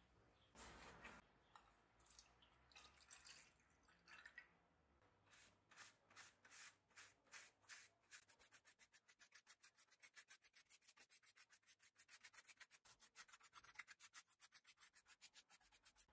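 Faint strokes of an applicator rubbing finish onto a wooden table frame. At first they are a few separate scratchy strokes. From about eight seconds in they become a fast, steady back-and-forth of about five strokes a second.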